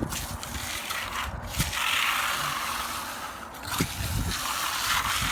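Steel finishing trowel scraping over wet concrete in long sweeping strokes, bringing bleed water to the surface. It is a hiss that swells and fades with each stroke.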